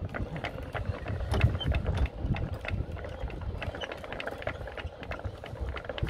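Wind rumbling on the microphone aboard a fishing boat, with irregular clicks and knocks of rods and reels being worked as hooked fish are wound in.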